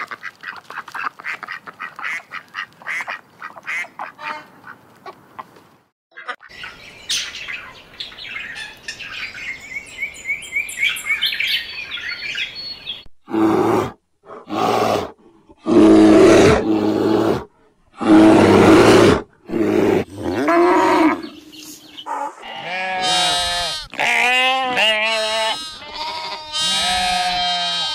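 A run of animal calls: mallard ducks quacking in the first few seconds, then loud rough bear growls in bursts from about halfway, then sheep bleating in a series of wavering calls near the end.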